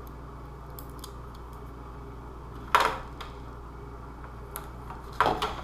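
Hand-handling sounds as armour pieces and Velcro are worked on: a few faint ticks, then a sharp tap near the middle and another cluster of taps near the end, over a steady low hum.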